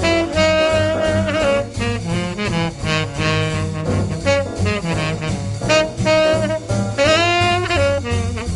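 Background swing jazz music with a horn melody over a bass line.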